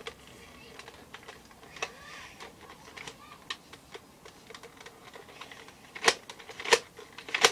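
Small plastic clicks and rattles of a Nerf dart magazine being handled and loaded, irregular, with a few sharper, louder clicks near the end.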